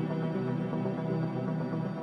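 Background music: slow ambient synthesizer pads holding steady, sustained chords.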